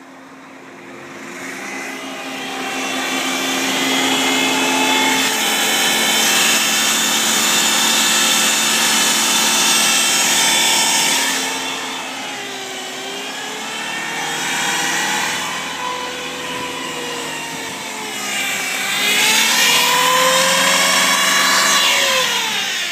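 Car engine revved hard and held high for several seconds, let down, blipped, then revved and held again. A loud high hiss runs over the engine note, a noise judged pretty bad and thought to come from the transmission side.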